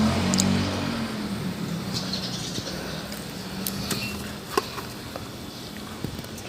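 A steady engine hum fading away over the first few seconds, then scattered light clicks and taps, the loudest a sharp tap about four and a half seconds in.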